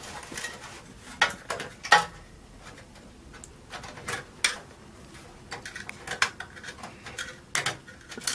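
Screwdriver working out a screw from a desktop PC's metal case: irregular sharp metallic clicks and clinks, about a dozen spread over several seconds.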